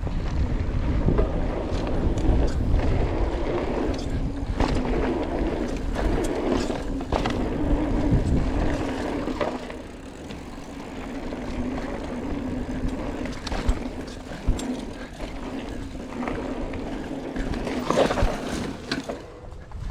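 Mountain bike rolling over a dirt trail: a steady tyre hum with scattered knocks and rattles from the bike, and wind rumbling on the microphone. A cluster of sharper knocks comes near the end.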